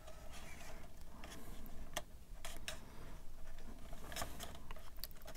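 Hard plastic model-kit parts being handled and fitted together by hand: a few faint, sharp clicks and light rubbing, scattered irregularly.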